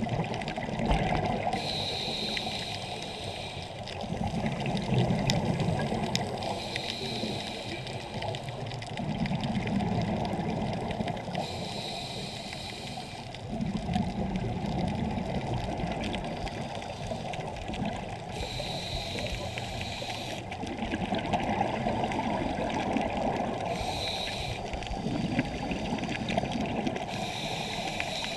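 Scuba diver breathing through a regulator underwater: a short hissing inhale every four to six seconds, each followed by a longer gush of exhaled bubbles.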